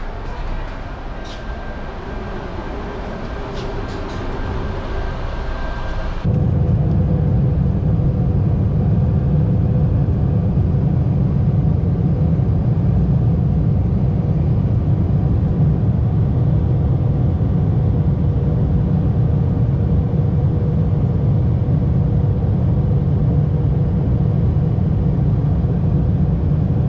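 Ambience with a few sharp clicks, then a sudden cut about six seconds in to the steady, loud low rumble of a vehicle in motion, heard from inside.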